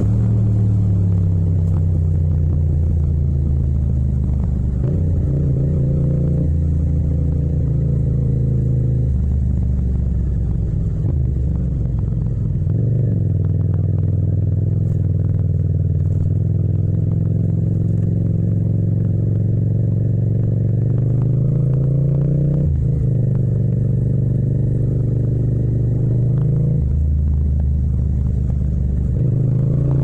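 Yamaha MT-07 (FZ-07) 689 cc crossplane parallel-twin engine running while ridden, recorded raw without wind noise. Its note holds steady, then shifts pitch up and down in steps several times as the throttle is opened and closed.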